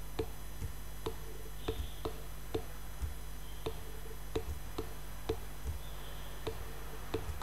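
Light ticking, about two ticks a second at slightly uneven spacing, over a faint steady low hum.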